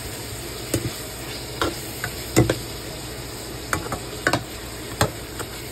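A slotted spatula stirring ground pork and red bell pepper frying in a pan, knocking sharply against the pan about once a second over a steady sizzle.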